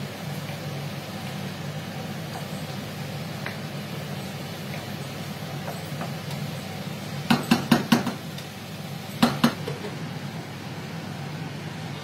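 A spatula knocking and scraping against a pan during stirring: a quick run of about six clanks around seven seconds in and two more a little over a second later, over a steady low hum.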